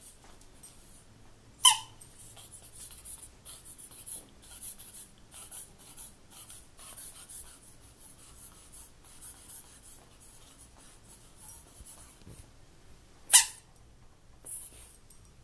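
Pembroke Welsh Corgi's rubber squeaky toy fish squeaking sharply twice, once about a second and a half in and again near the end, with a fainter squeak just after. In between come many soft clicks and scratches as the dog mouths and paws at the toy.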